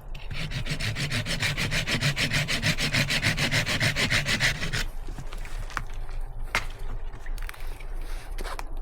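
Hand saw cutting through a piece of firewood with quick, even strokes for about five seconds, then stopping; a few light knocks and clicks follow.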